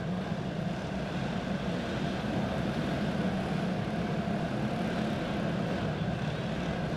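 Several single-cylinder four-stroke OHV clone kart engines running together in a steady drone at low pace speed, as the karts circle in formation before the start of the heat.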